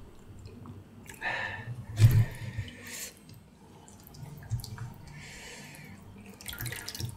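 Wet spooning and dripping as spicy broth and chopped herbs are spooned over a large boiled pork backbone, with a few short splashes and soft knocks, the loudest about two seconds in.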